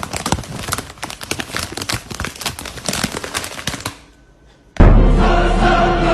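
Rapid, dense crackling and crinkling for about four seconds. After a short lull, loud music starts near the end.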